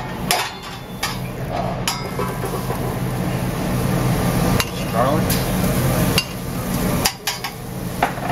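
Metal tongs knocking and scraping in a black steel pan on a gas burner as butter and garlic start to cook, about half a dozen sharp clinks spread through. A steady low hum runs underneath.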